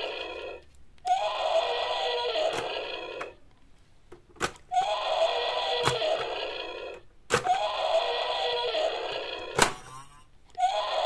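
The same roughly two-second electronic sound clip plays over and over, starting about every three seconds, with short sharp clicks and knocks from plastic toys being handled between the repeats.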